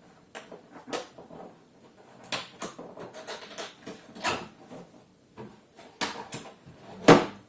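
Packaging being handled during an unboxing: a series of rustles, scrapes and light knocks of cardboard and wrapping, with a sharper knock near the end.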